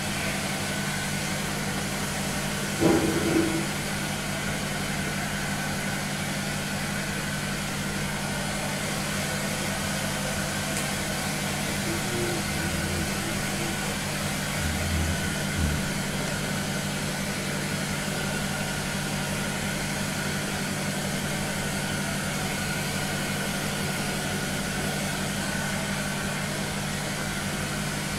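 Handheld hair dryer running steadily on its fan motor, a constant blowing hum, while being worked through long hair. A short, louder sound breaks in about three seconds in.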